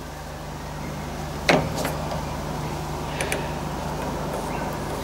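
A lathe's quick-change tool post and tool holder being handled as the tool height is adjusted: a sharp metallic knock about a second and a half in, then a couple of lighter clicks about three seconds in, over a steady low hum.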